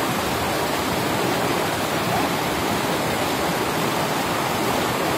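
Flood-swollen mountain river rushing past, a steady, unbroken noise of fast-flowing water.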